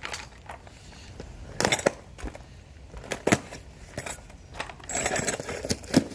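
Loose metal exhaust hardware (bolts, nuts and clamps from the install kits) clinking as it is handled, with a few separate sharp clinks and some rustling.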